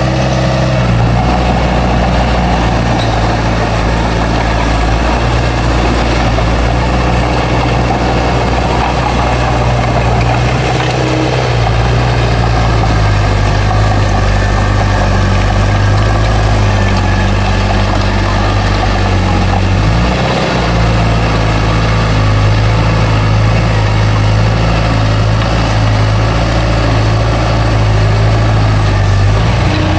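Bulldozer's diesel engine running steadily, its note shifting a little about 11 seconds in and dipping briefly about 20 seconds in as the load changes.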